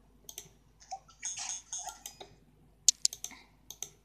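Clicking and tapping on a computer's keys and buttons: a few softer taps, then a quick run of sharp clicks in the second half.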